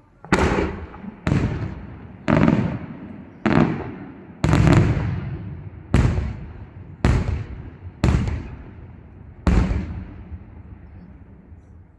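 Aerial firework shells bursting: about nine loud bangs, roughly one a second, each trailing off in an echo.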